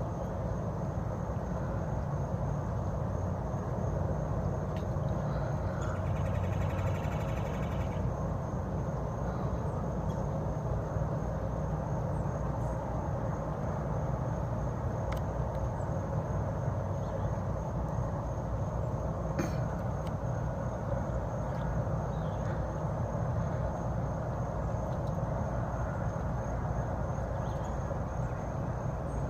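Steady low rumble of outdoor background noise, with a brief buzzy sound about seven seconds in and a couple of sharp clicks later on.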